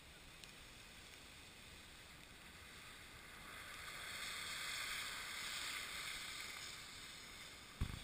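A person sliding face-down on the snow and slush of a steep street: a soft swishing hiss that swells from about three seconds in as they come closer, then eases off. A sudden thump comes just before the end.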